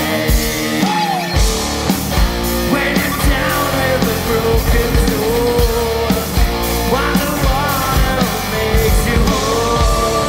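Live prog rock band playing: electric guitars and drums, with a melody line that bends and slides in pitch over a steady drum beat.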